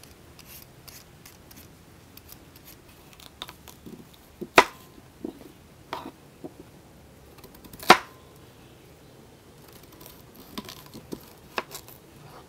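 Potato peeler scraping faint strokes over a potato, then a kitchen knife cutting potatoes on a wooden board, with scattered knocks. Two of the knocks are loud and sharp, each ringing briefly.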